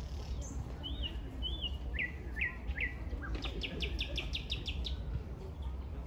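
Thrush nightingale singing one phrase: two short arched whistles, three quick down-slurred notes, then a fast dry trill of about ten notes a second lasting nearly two seconds. A steady low rumble runs underneath.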